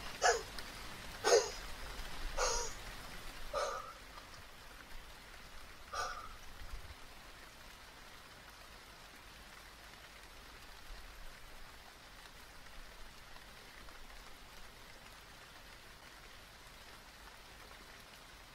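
Steady rain falling, with a dog barking about five times in the first six seconds; after that only the rain goes on.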